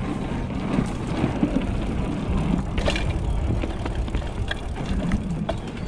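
Trek Roscoe 6 mountain bike ridden over a wooden plank boardwalk and onto dirt singletrack: a steady rumble of tyres and wind, with scattered clicks and knocks from the bike rattling over the bumps.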